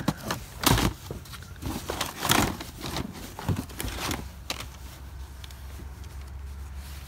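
Rummaging through a cardboard box of odds and ends: plastic DVD cases and other items clack and rustle as they are moved, with a few sharp knocks about a second in and again near the two-and-a-half-second mark.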